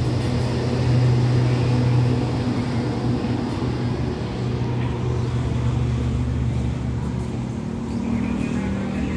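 Passenger train's last coaches rolling past and pulling away: a steady low hum over the rumble of wheels on the track, easing off as the rear car recedes.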